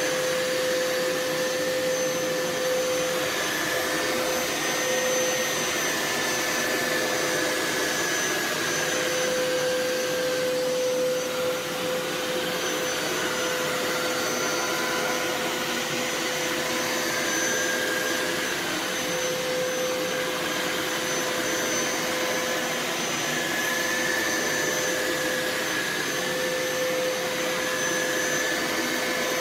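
Hoover Power Scrub Elite FH50251 carpet cleaner running continuously as it is worked over carpet: a steady motor hum and whine, its higher tone sagging slightly in pitch for a few seconds near the middle.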